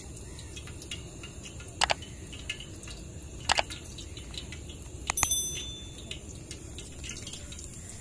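Water dripping, a few sharp separate drops over a steady low rumble of outdoor ambience, with a short bright ring about five seconds in.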